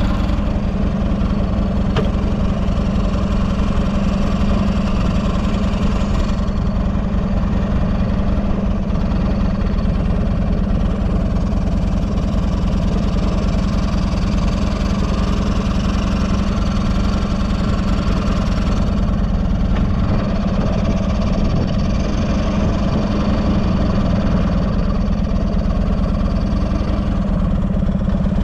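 Buell XB12SS Lightning's air-cooled 1203 cc V-twin idling steadily, with no abnormal noise by the seller's account.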